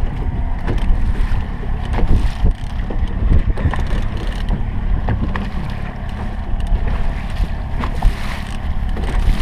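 Steady low rumble of wind buffeting the microphone over a boat's outboard motor running at trolling speed, with scattered light knocks and clicks.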